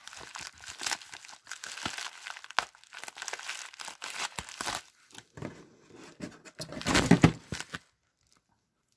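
Scissors cutting through a padded mailer, with the paper and padding crinkling and crackling as it is cut and handled. There is a louder burst of crinkling shortly before the end, then it stops.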